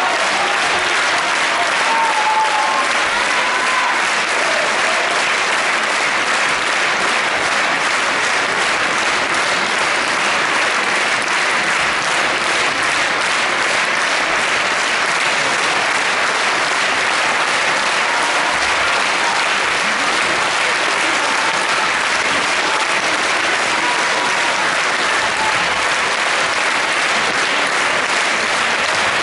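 Large theatre audience applauding steadily, a dense, even sound of many hands clapping.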